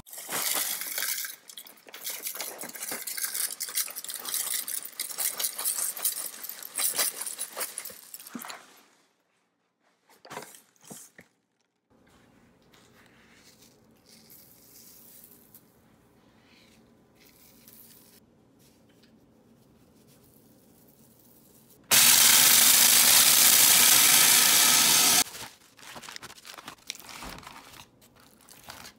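Cornflakes pouring and rattling into a plastic food-processor bowl for several seconds. After a quiet stretch, the electric food processor runs for about three seconds, loud and steady, chopping the cornflakes into crumbs; a few soft handling rustles follow near the end.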